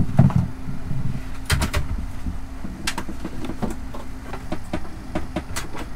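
Scattered knocks and clicks of work inside a boat's wooden nav table: cable being coiled and gear shifted about in the locker, heaviest near the start. A steady low hum runs underneath.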